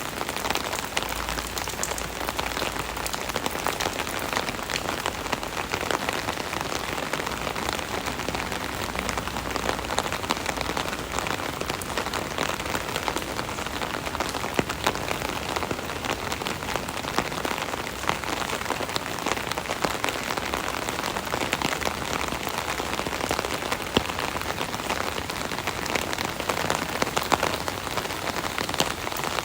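Steady rain drumming on an umbrella canopy, a dense patter of drops with sharper individual drops ticking through.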